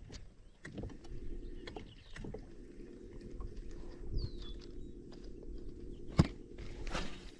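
Fishing boat's motor with a steady low hum, under scattered small clicks and knocks of tackle handling. A sharp knock comes about six seconds in, then a short hiss near the end, and a bird gives a brief downward chirp partway through.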